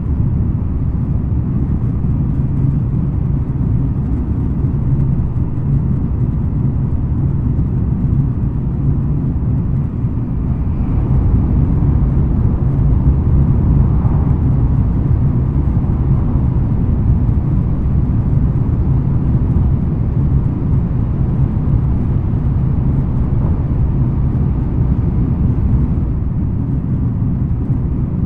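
Steady low rumble of a JR West N700 series 5000 Shinkansen car running along the line, heard from inside the passenger car, growing a little louder for a few seconds near the middle.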